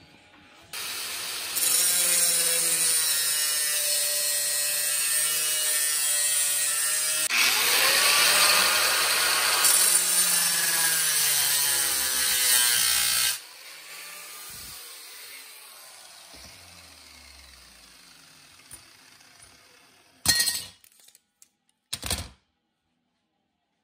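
Small angle grinder with a metal cutting disc grinding through a hard steel saw blade, its motor pitch dipping and recovering under load. About 13 seconds in it is switched off and the motor winds down with a falling whine. Near the end come two short sharp noises.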